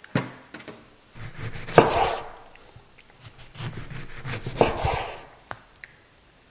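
A kitchen knife sawing through whole oranges on a wooden cutting board, slicing them into rounds: two spells of cutting, each ending with a sharp knock of the blade on the board.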